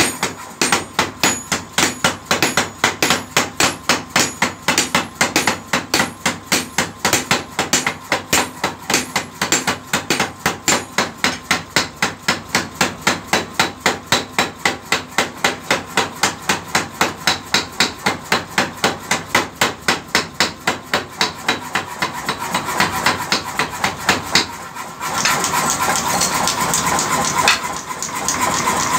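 Mechanical power hammer pounding a red-hot steel blade in a fast, even run of about four blows a second. The blows die away after about 22 seconds, and near the end a steady rushing noise takes over.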